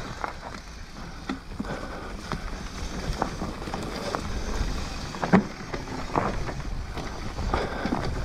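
Mountain bike riding down a dirt trail: wind rushing over the microphone, with scattered clicks and knocks of the bike rattling over bumps. The sharpest knock comes about five seconds in.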